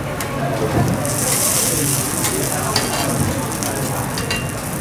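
Egg sizzling on a hot steel teppanyaki griddle, with a louder hiss for about a second starting a second in. Light clicks and scrapes of a metal spatula on the griddle plate come through it.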